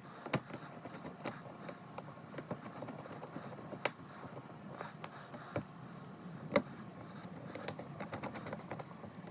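Scattered light clicks and taps of a plastic cover being handled and fitted back into place over the oil filter area, with one sharper click about two-thirds of the way through.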